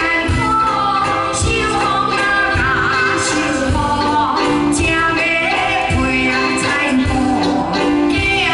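A woman singing into a handheld microphone with a live band accompanying her over a steady beat, heard through the stage PA. About three seconds in she holds a note with vibrato.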